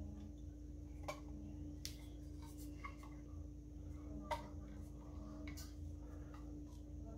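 A few light, sharp clicks and taps of a small screwdriver and screws against the metal case of a Smiths speedometer as it is handled and put back together, the loudest a little past the middle, over a faint steady hum.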